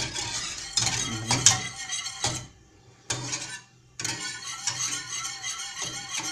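A wire whisk beating thin, milky pastry cream in a stainless steel saucepan, its wires rattling and clinking quickly against the pan. The whisking stops twice for a moment near the middle.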